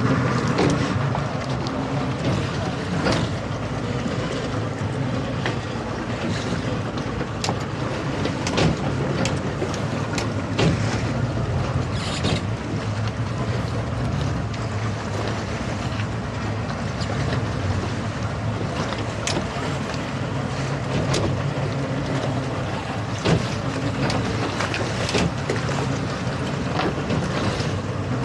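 A towboat's engine idling with a steady low hum, with wind buffeting the microphone and a few scattered knocks.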